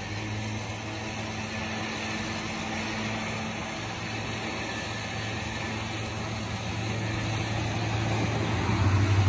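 Vehicle engine idling steadily just after being started, a low even hum that grows louder about eight seconds in.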